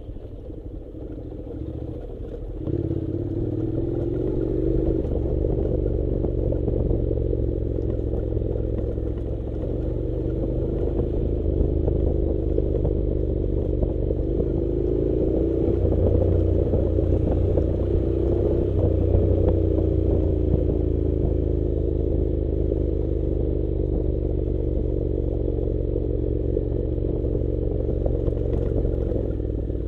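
Honda NC700 motorcycle's parallel-twin engine running as the bike rides a loose gravel dirt road, picking up power about two and a half seconds in, its pitch rising and falling with the throttle. Some clatter from the rough surface runs underneath.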